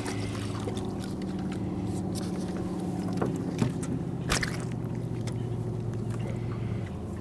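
A hooked crappie being landed: light water splashing and handling scrapes, with a couple of sharp clicks near the middle, over a steady low hum.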